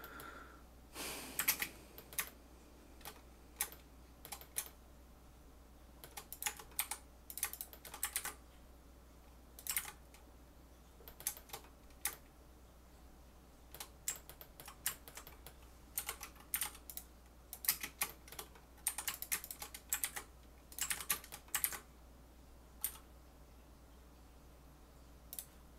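Computer keyboard keys tapped in short, irregular bursts as Blender shortcuts are entered, over the steady low hum of a room fan.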